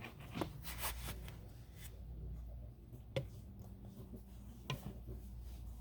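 Handling noises as a hair dryer is put back in its packaging: a few light clicks and knocks with some rubbing, over a low steady hum. The dryer is not running.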